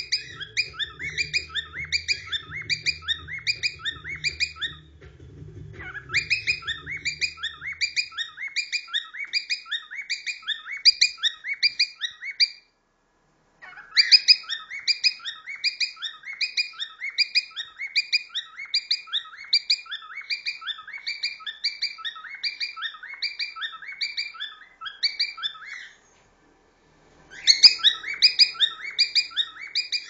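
Cockatiel singing: runs of short, quickly repeated whistled notes, about three a second. The song breaks off briefly three times and starts again.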